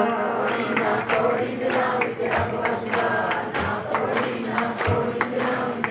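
A congregation singing a devotional refrain together, many voices in unison, over a steady beat about three times a second.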